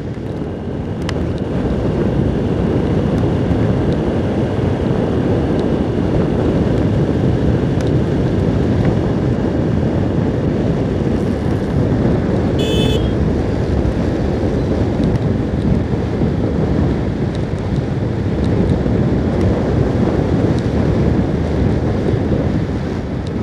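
Wind buffeting a helmet-mounted microphone on a moving motorcycle, with the engine and road noise running underneath. A short beep sounds about halfway through.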